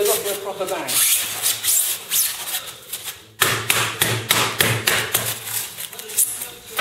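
A polystyrene sheet being pressed and twisted against the rim of a firework mortar tube to cut out a round baffle: repeated rubbing, scraping strokes. A short lull comes about three seconds in, then the strokes start again sharply.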